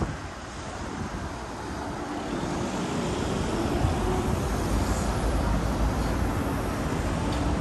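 Road traffic noise, growing gradually louder over several seconds as vehicles approach.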